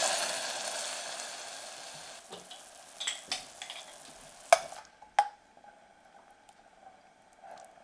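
Water hissing and sizzling as it hits a hot stainless steel saucepan of fried onion and garlic, fading away over the first few seconds. Then a few sharp clicks of a metal spoon against the pan as miso paste is added.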